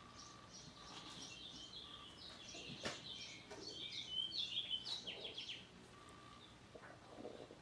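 Small birds chirping in a quick series of short, high chirps, busiest from about two to five and a half seconds in.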